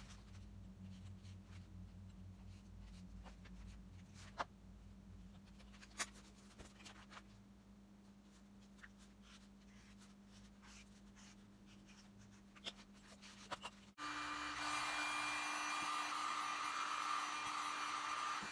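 Light handling of EVA foam sheets and a paper pattern, with scattered soft taps and the scratch of a marker. After an abrupt change about 14 seconds in, a heat gun blows steadily with a hum, heating an EVA foam pauldron to shape it.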